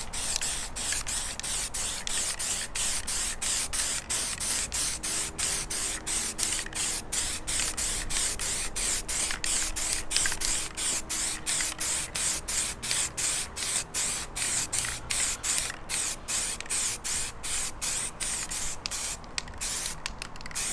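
Aerosol spray can of grey primer hissing in quick short bursts, about two to three a second, as a light first coat is laid on plastic grilles.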